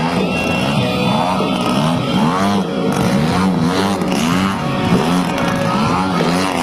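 Gasoline engines of RC model airplanes running, their pitch rising and falling over and over about twice a second, with another engine holding a steadier note underneath.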